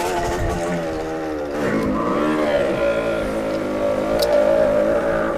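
Motorcycle engine running under throttle. Its pitch dips about two seconds in, climbs back up, then holds steady.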